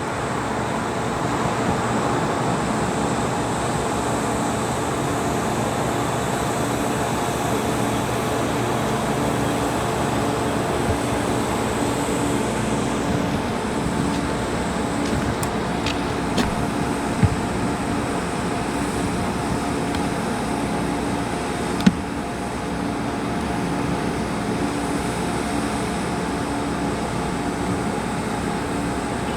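A motor vehicle engine running steadily, with a few short knocks around the middle.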